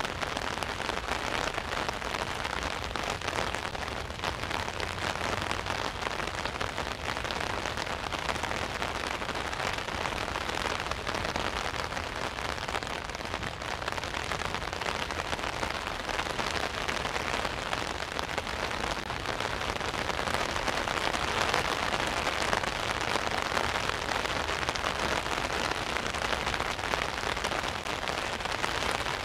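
Steady rain falling on an umbrella overhead, a dense patter of drops that swells a little about twenty seconds in.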